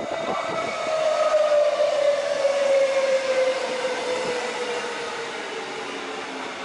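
Queensland Rail electric multiple unit running in along the platform, with the noise of its wheels on the rails. Over it is a whine whose pitch falls steadily as the train slows. It is loudest a second or two in, as the train passes close.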